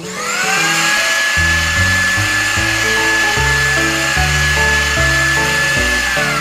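Miniature portable bottle blender's motor spinning up, running with a steady high whine as it blends fruit into juice, and winding down near the end.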